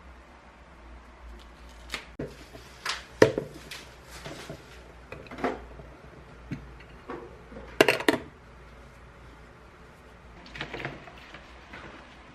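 Kitchenware being handled and set down: a series of separate clinks and knocks, the loudest about three seconds and eight seconds in.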